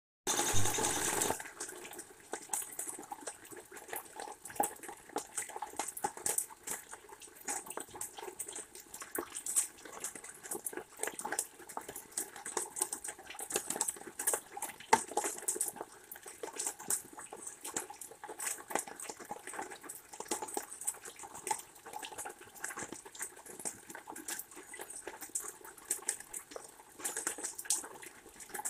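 Rain falling, with many irregular close drips and taps over a steady wash of noise, louder for the first second.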